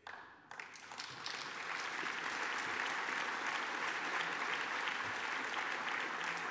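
Audience applauding, starting abruptly and swelling over the first couple of seconds, then holding steady.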